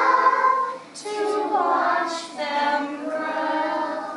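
A group of kindergarten children singing a song together, in three held phrases with short breaths between them.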